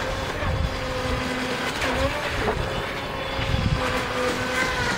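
Radio-controlled jet ski's brushless outrunner electric motor running at speed, a steady high whine whose pitch dips and wobbles briefly about two seconds in as the throttle changes. A gusty low rumble runs underneath.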